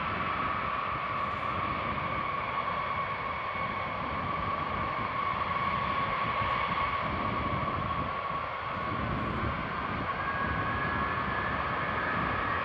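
Jet engines of several B-52 bombers running as the aircraft taxi in line: a steady high whine over a broad rushing roar. A second, higher whine rises in about ten seconds in as another bomber comes closer.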